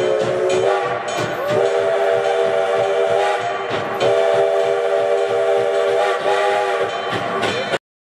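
Steam locomotive's chime whistle blowing a series of long blasts, several tones sounding together as a chord, each blast sliding up in pitch as it opens, over the noise of the moving train. The sound cuts off suddenly near the end.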